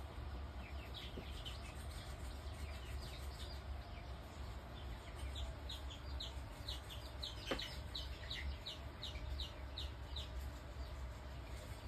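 A run of short, high chirps, each falling in pitch, about three a second, in two spells, from an animal, over a steady low hum. One sharp click about halfway through.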